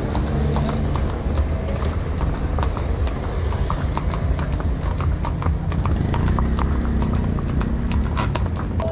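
Horse hooves clip-clopping on a paved stone street, two horses walking one behind the other, in irregular clicks several times a second over a steady low rumble.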